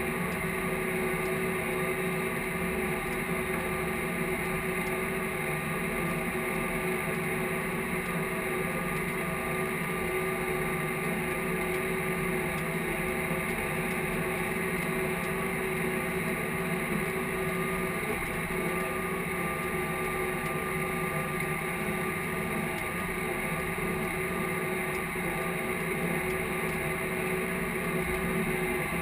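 Case IH tractor's diesel engine running steadily under load while pulling a field cultivator, heard from inside the cab.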